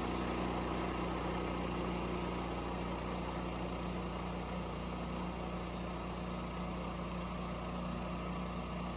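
Wood-Mizer LT15 Start sawmill's engine running steadily as the mill is set for another cut.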